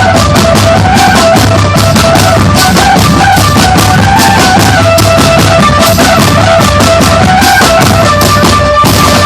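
A marching drum band playing loud: snare and bass drums beat a dense, fast rhythm under a melody of short held notes on pitched instruments.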